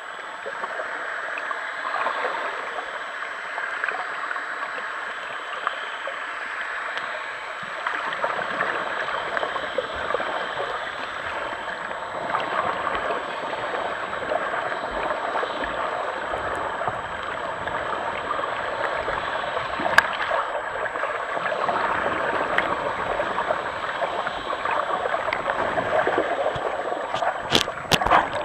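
Underwater recording noise: water rushing and gurgling around a camera held underwater by a swimming snorkeller, a steady crackling hiss with a few sharp clicks near the end.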